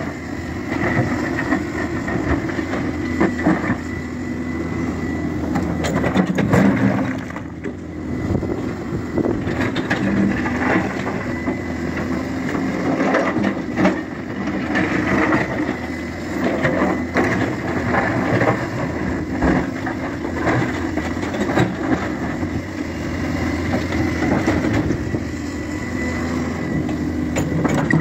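Hyundai hydraulic excavator's diesel engine running steadily under load, with a thin high whine, while its steel bucket digs through broken rock with irregular knocks, scrapes and clatter of stones.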